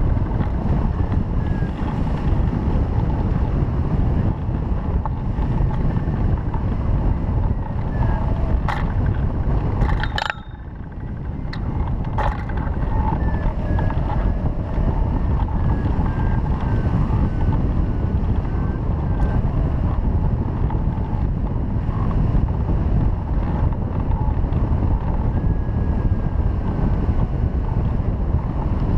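Steady rush of wind on the microphone from the airflow over a hang glider in flight under tow. A few sharp knocks come about nine to twelve seconds in, with a brief dip in the wind noise.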